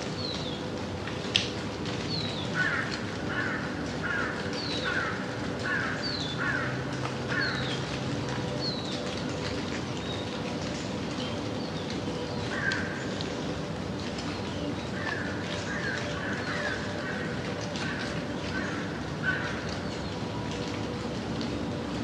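Gentle rain falling steadily, with crows cawing in runs of about seven short calls that stop and start again, and another bird repeating quick falling chirps over the first half. Two sharp ticks stand out, about a second in and near the end.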